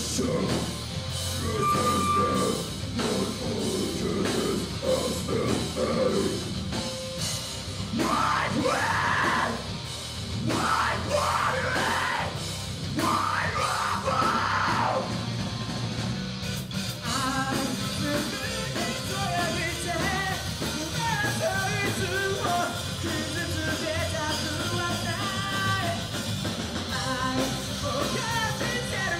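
Rock band playing live on electric guitar, bass guitar and drum kit, with a vocalist singing over it. The voice comes in about eight seconds in, and the music changes to a busier part about sixteen seconds in.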